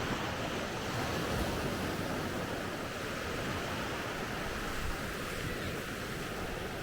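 Steady rush of sea surf washing onto the beach, mixed with wind.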